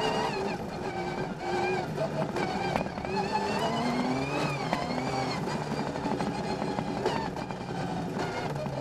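Rally car engine heard from inside the stripped cockpit, driven hard, its revs repeatedly climbing and dropping through gear changes. Scattered sharp clicks and knocks of gravel strike the car.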